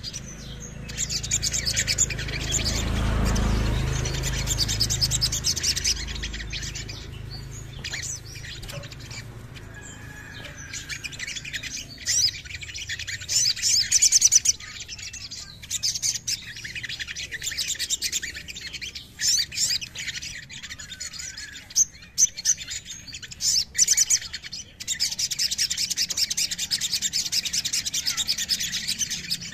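Male olive-backed sunbird singing: rapid, high-pitched chattering trills and rattling runs, nearly continuous with brief breaks. A low rumble sits under the song for the first few seconds.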